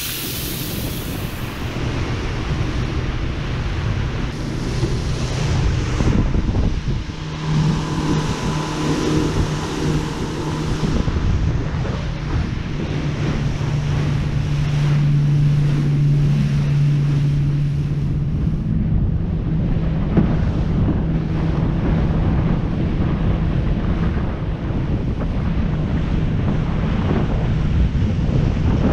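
Small boat under way: wind buffeting the microphone and water rushing past the hull, over the steady low hum of its motor, which shifts in pitch about seven seconds in.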